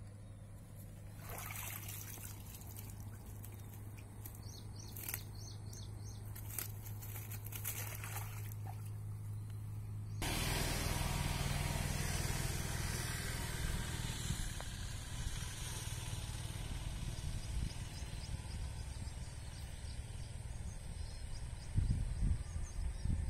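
Outdoor water ambience at a canal: steady trickling, rushing water. It is quieter at first with a few scattered knocks and splashes, then it turns suddenly louder and steadier about ten seconds in, with a few low bumps near the end.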